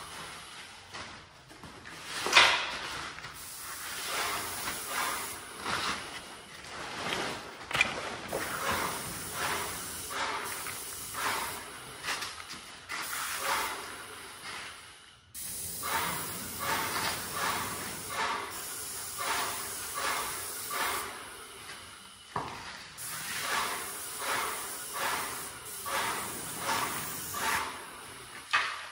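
Paint spray gun hissing as lacquer is sprayed onto a wooden door. The hiss swells and fades a little more than once a second with each pass of the gun. It stops briefly about fifteen seconds in.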